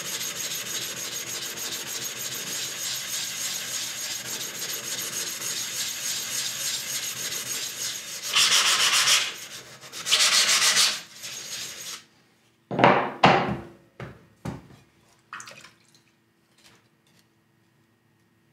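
A soaked whetstone being flattened: a steady, gritty grinding rub of stone on an abrasive surface, with two louder strokes about 8 and 10 seconds in. The rubbing stops about 12 seconds in, and a few short knocks follow as the stone and tools are set down.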